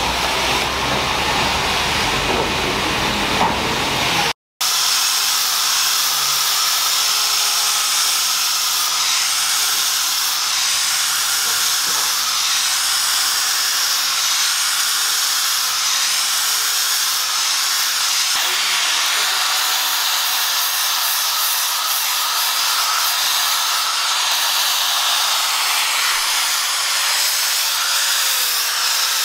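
Electric angle grinder with an abrasive sanding disc grinding the face of a sandstone block, smoothing it into a sharpening stone: a steady abrasive hiss over the motor's whine, which wavers slightly in pitch as the pressure changes. The sound cuts out for a moment about four seconds in.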